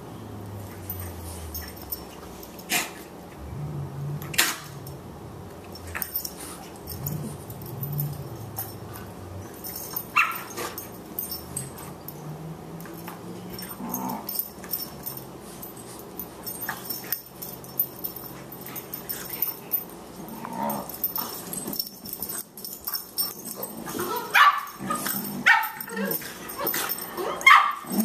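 A boxer puppy and an adult boxer play-fighting: low growling with occasional sharp barks and yips, getting busier and louder near the end.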